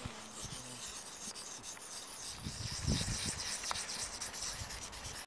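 Dry wood being scraped and rubbed in a steady, rasping scratch, with a few dull knocks about halfway through.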